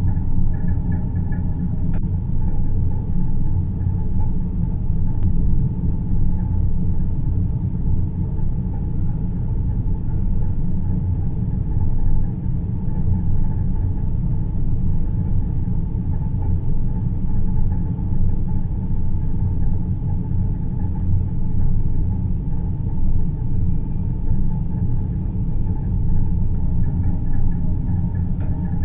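Steady, deep rumbling drone of synthesized space-ambience noise, heaviest in the low bass, with faint steady tones sitting above it.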